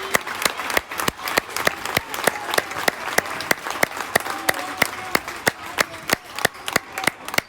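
Sharp hand claps close by, about four a second, over a crowd applauding in a gym.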